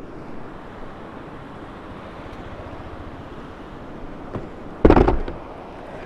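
Steady rushing noise, as of wind on an outdoor microphone, broken about five seconds in by a loud, half-second thump.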